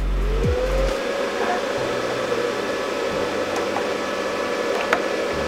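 A small electric cooling fan spinning up, its whir rising in pitch briefly and then running steadily, with one light click near the end.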